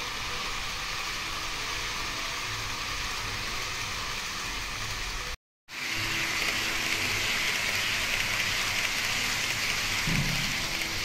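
Endo HO-gauge 923 series Doctor Yellow model train running on the track: a steady hiss of the wheels rolling on the rails. It breaks off for a moment about halfway, then comes back louder as the train passes close below.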